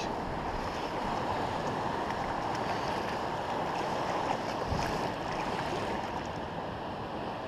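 Surf washing over shallow water at the shoreline, a steady rushing, with wind on the microphone. A brief low bump a little past the middle.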